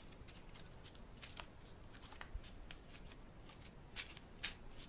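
A fairly new, still-stiff deck of playing cards being shuffled by hand: a scatter of faint card flicks and riffles, with two louder flicks near the end.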